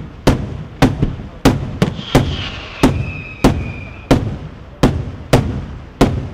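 Daytime fireworks: aerial shells bursting overhead in a steady string of loud bangs, about two a second, each trailing off in a short rolling echo.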